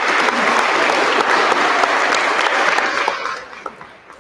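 A small group of people applauding, the clapping dying away about three seconds in.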